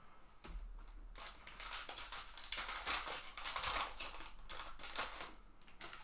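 Rustling and crinkling of a trading-card pack being handled, the wrapper and cards making irregular crackles for several seconds.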